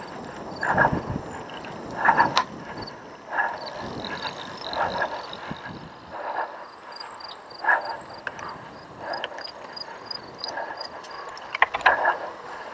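Cyclocross bike ridden over bumpy grass: knocks and rattles from the bike, with a rush of sound that repeats about every second and a half.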